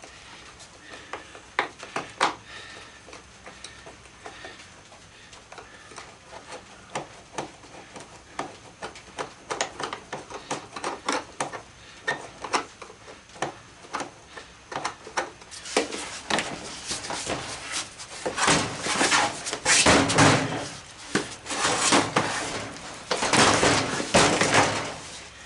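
Screwdrivers prying apart the two halves of a plastic toy horse's housing: scattered sharp clicks and knocks, then from about two-thirds of the way in, louder, longer stretches of scraping and rattling plastic.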